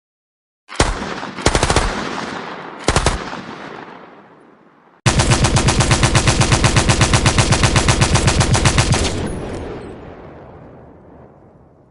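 Gunfire sound effect: a few sharp shots in the first three seconds, each trailing off in a long echo, then a sustained machine-gun burst of about seven rounds a second for about four seconds, which stops abruptly and rings out in a long fading echo.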